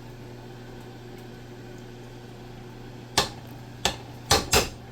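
Kitchenware clattering: four sharp clanks of pots, dishes or utensils being handled, the last two close together near the end, over a steady low hum.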